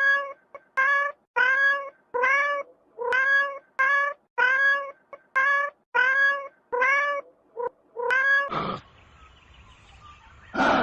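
A cat meowing over and over in short, high, even calls, about two a second, stopping about eight seconds in; a brief harsh noise follows.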